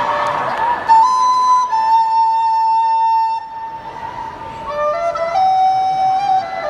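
Live pop music from a stage: a high lead line of long held notes, each sustained for one to two seconds. The music drops quieter a little after the middle, then picks up with new held notes.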